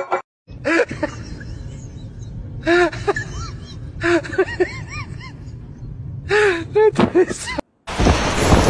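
Short bursts of a person's voice over a steady low background noise, then a loud, dense rumbling noise that sets in suddenly near the end.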